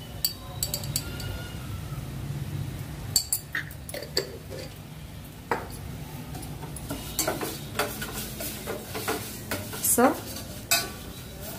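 A spoon stirring a bowl of raw tamarind rasam with mashed roasted brinjal and onion, clinking against the dish now and then in scattered short taps.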